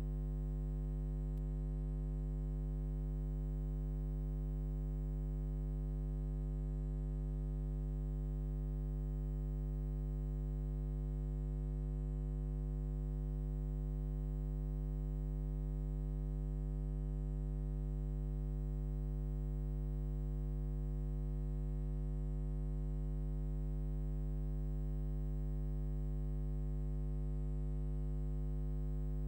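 Steady low electrical hum with many overtones.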